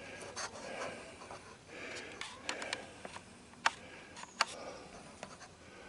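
Camera being handled and repositioned: faint rustling, with a few sharp clicks and light knocks, the loudest about three and a half seconds in.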